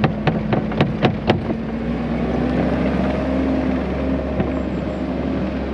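Skid steer's diesel engine running steadily while moving dirt, with about half a dozen sharp clanks in the first second and a half.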